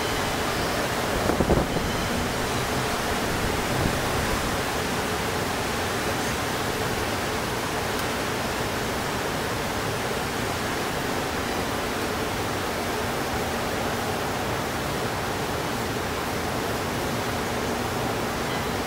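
Steady city noise, a dense, even wash of distant traffic, with a brief louder bump about a second and a half in.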